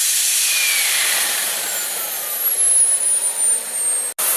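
Small model jet turbine engine of a Boomerang Nano RC jet running: a loud, steady high-pitched hiss with a whine that falls in pitch over a couple of seconds. Near the end the sound cuts out for an instant, then resumes as steady hiss with a high steady whine.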